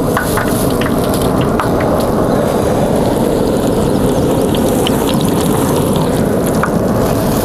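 Flour-coated chicken pieces deep-frying in hot oil: a dense, steady sizzle with scattered crackles, over a steady low rumble.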